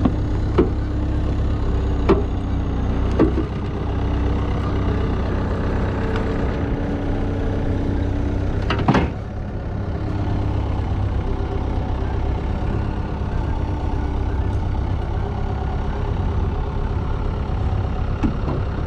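Skid steer engine idling steadily, with a few sharp knocks on top, the loudest about nine seconds in.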